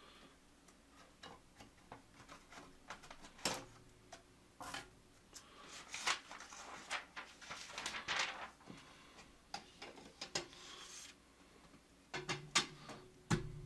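Hands handling objects at close range: scattered clicks and taps with short bursts of rubbing and rustling.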